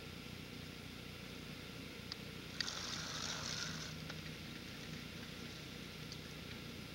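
Steady rush of a small river running high with flood water, with a brief hissing burst lasting about a second, roughly two and a half seconds in.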